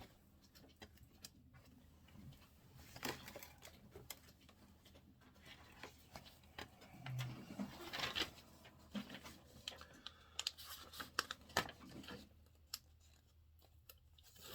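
Faint paper rustling and peeling as a printed adhesive shipping label is pulled off its backing sheet, with scattered small clicks and taps of handling.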